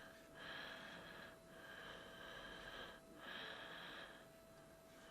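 Faint, steady breathing through the nose close to the microphone, in even strokes about a second long with short pauses between them. A faint, steady hum lies underneath.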